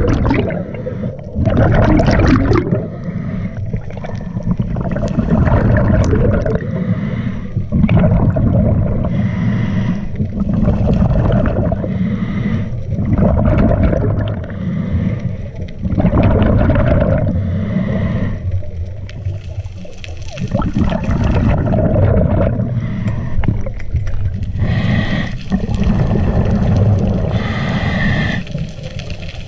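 A scuba diver breathing through a regulator underwater: breath after breath of hissing inhalations and gurgling bursts of exhaled bubbles, muffled through the camera housing.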